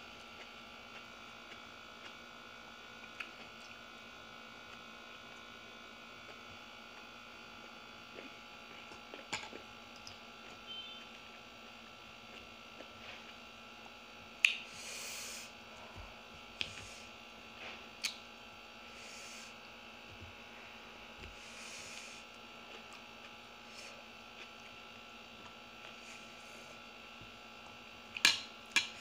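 Steady electrical hum under the quiet sounds of someone eating by hand: scattered soft clicks, brief wet mouth noises, and a few sharp spoon-on-plate clinks near the end.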